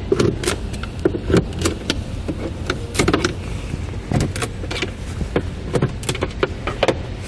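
Plastic push-pin trim fasteners being pried out of the cargo-area carpet with a trim panel tool: a run of sharp plastic clicks and snaps at uneven intervals.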